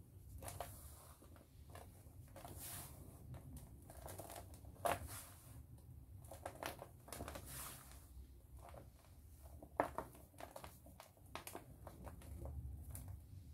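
Clumps of baking soda crushed and crumbled between the fingers: soft, irregular crunching and powdery crackling, with two sharper crunches about five and ten seconds in.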